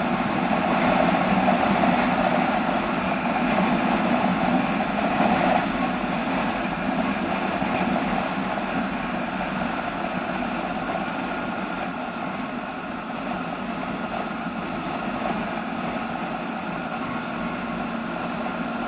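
Ural flat-twin motorcycle engine with a 'bomba' muffler, running steadily at speed on the road. Its ignition is set slightly advanced, so it pulls well. The note eases a little about five seconds in.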